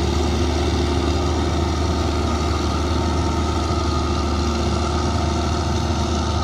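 Caterpillar Challenger 95E tracked tractor's diesel engine running steadily under load as it pulls a four-furrow plough through the ground.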